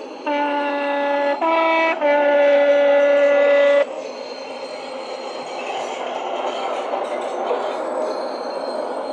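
Sound decoder in a Bachmann OO gauge Class 419 MLV model sounding a two-tone horn through the model's small speaker: a low note, a brief higher note, then a long low note, for about three and a half seconds before it cuts off sharply. Then the unit's running sound with a clickety-clack as the model passes.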